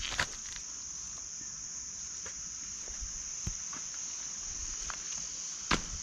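Steady high-pitched chorus of forest insects, with a few footsteps in rubber slides on dry leaf litter, one just after the start and one near the end.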